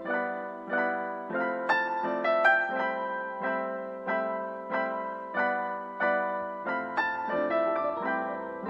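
Background music: a gentle electric-piano melody, its notes struck about three times every two seconds and each fading away.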